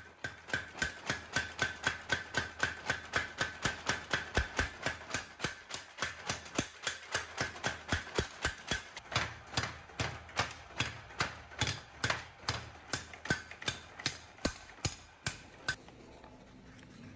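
Steady, rapid hammer blows on steel, about three a second, with a metallic ring, as a steel bearing ball is forged. The blows stop near the end.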